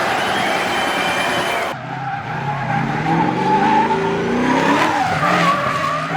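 Motor vehicle engine revving hard while its tyres squeal and skid, as in a drift or burnout. The sound changes abruptly just under two seconds in, and the engine note then steps up and down.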